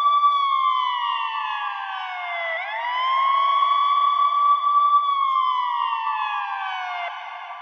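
Ambulance siren wailing: the pitch holds high, falls slowly over about two seconds, swoops quickly back up, holds, then falls again. It cuts off about seven seconds in, leaving a short fading tail.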